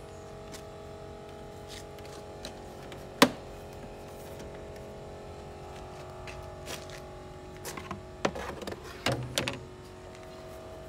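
Front grille being refitted on a car: one sharp click about three seconds in, then a cluster of knocks and clatters near the end. A steady hum with several held tones runs underneath.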